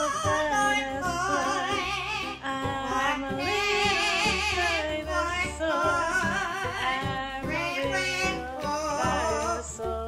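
Amazon parrot singing a long, wavering, operatic melody with heavy vibrato.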